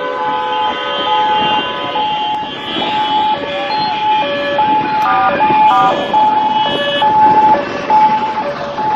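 Several vehicle horns and alarm tones blaring at once, steady and overlapping, one of them switching back and forth between a higher and a lower pitch, over a noisy background.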